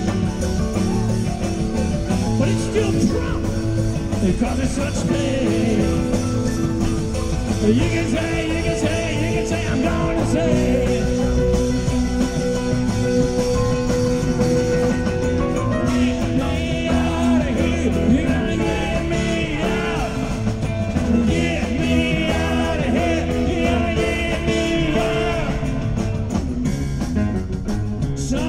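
Live rock band playing an extended passage with guitar, bass and drums, in a jam-band style with no clear words.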